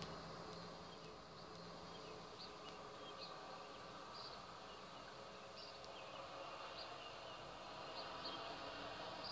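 Faint outdoor street ambience: a truck's low engine hum fades away in the first second or two, with short high-pitched chirps coming irregularly about once a second.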